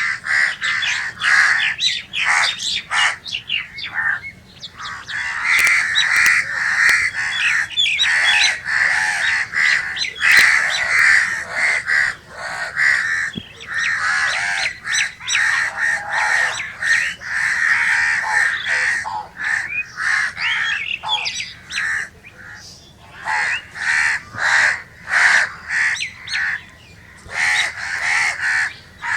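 Crows cawing over and over, the harsh calls following one another closely and overlapping through the middle, with short lulls about four seconds in and again past twenty seconds.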